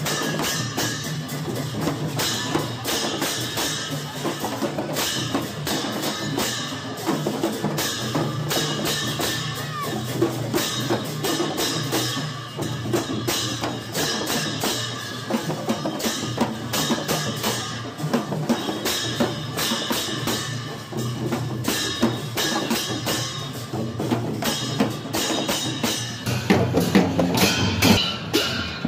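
Newar dhime drums beaten in a fast, continuous rhythm, with hand cymbals clashing along. The beating grows louder near the end.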